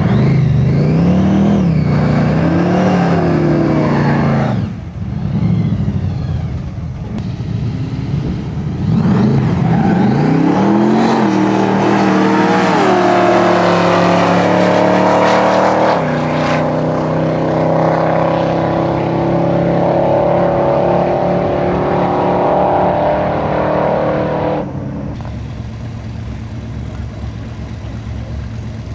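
Drag-racing cars' engines revving hard at the line, then accelerating away down the strip with the engine pitch climbing in steps through the gears. About 25 seconds in the sound drops to a lower, steadier engine note.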